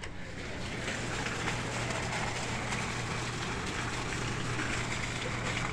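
Heavy thunderstorm rain pouring onto a parking lot, a steady hiss that swells up in the first second as a door opens onto it, with a low steady hum underneath.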